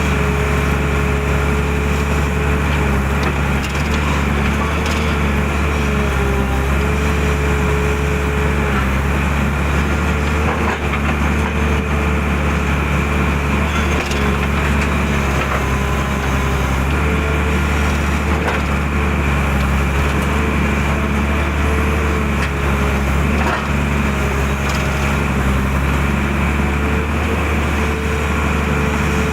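Excavator's diesel engine running steadily, with a hydraulic whine that wavers slightly in pitch.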